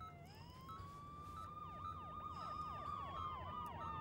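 Ambulance sirens. One wail rises just after the start and then slowly falls, while a second, faster siren yelps up and down several times a second over it from about a second in. Both grow slowly louder over a low steady hum.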